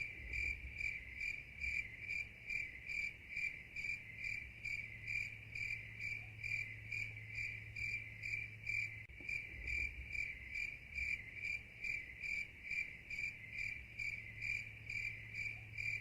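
Crickets chirping steadily, about three even chirps a second, over a low hum: the stock 'crickets' sound of an awkward silence.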